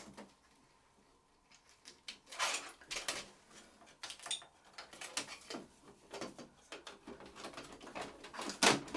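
Scattered plastic clicks, knocks and rustles from the casing and ribbon cable of an Epson WF-R5690 printer being handled while the control-panel and scanner assembly is put back in place. It is nearly silent for the first second and a half, and there is a louder knock near the end.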